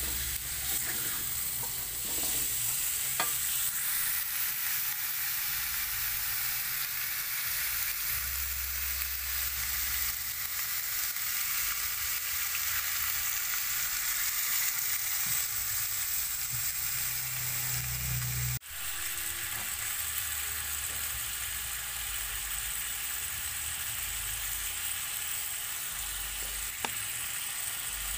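Chicken feet in chili sambal sizzling steadily in a hot wok, with a metal spatula stirring and scraping through them. The sound drops out briefly about two-thirds of the way through.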